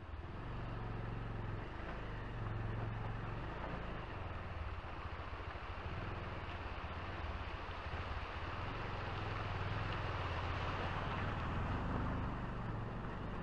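Motorcycle engine running at low speed in a steady low note while the bike fords a rocky stream, with rushing, splashing water over it.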